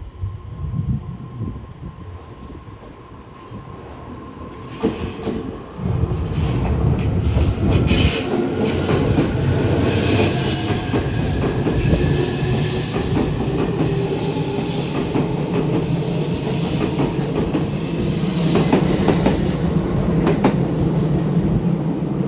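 E259 series Narita Express electric train pulling out and accelerating, its motor whine rising in pitch. From about six seconds in it grows much louder as the cars run past close by, with wheels clicking over the rail joints and a high squeal on top.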